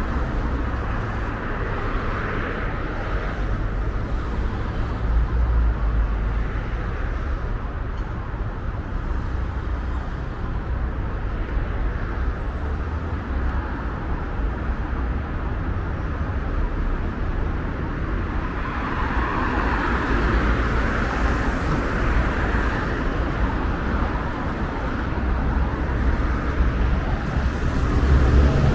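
City street traffic: a steady wash of cars passing on a busy avenue, swelling as vehicles go by, loudest a little past halfway through.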